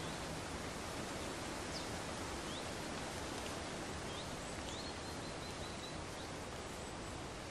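Forest ambience: a steady, even hiss, with a few faint, high bird chirps and a short trill about halfway through.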